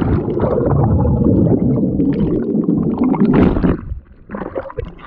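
Muffled rumbling and gurgling of bubbling water heard underwater in a swimming pool just after a jump in, until the surface is broken about three and a half seconds in.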